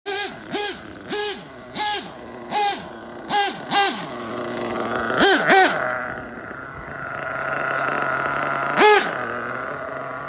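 Nitro engine of a Losi 8IGHT-T RC truggy revving in short throttle blips, each a quick rise and fall in pitch, about one every two-thirds of a second. It then runs longer with a swell and fade, and gives one more sharp blip near the end.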